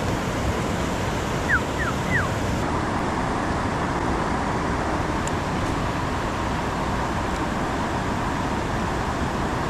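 Steady outdoor rushing noise, with three quick falling chirps about a second and a half in.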